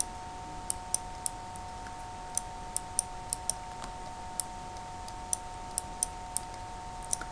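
Stylus tip clicking against an interactive whiteboard as figures are written out by hand: about fifteen short, sharp clicks at irregular intervals. A steady two-tone hum runs underneath.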